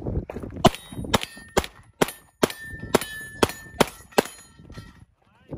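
A string of about nine pistol shots from a red-dot-sighted race pistol, roughly two a second, several followed by the brief ring of steel targets being hit.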